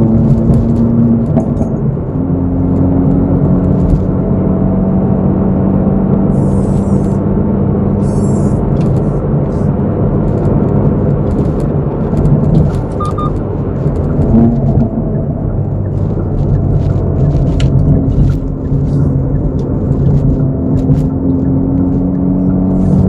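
Hyundai Veloster N's 2.0-litre turbocharged four-cylinder engine and exhaust droning steadily while cruising, heard from inside the cabin. The engine note shifts about halfway through and climbs slowly near the end as the car accelerates, with scattered light clicks over the top.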